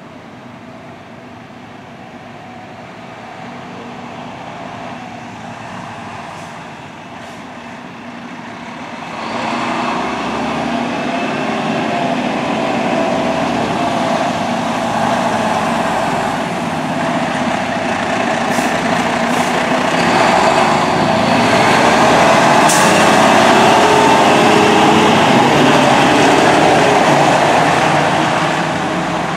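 Fire engine driving past, its engine running and growing louder from about a third of the way in. It is loudest as the truck passes, then fades slightly. A few short high hisses are heard a little past the middle.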